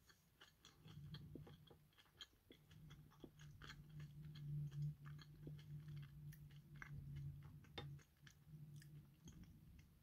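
A person faintly chewing a sugar-coated orange cream chocolate truffle: many small, irregular mouth clicks and soft crunches, over a low steady hum.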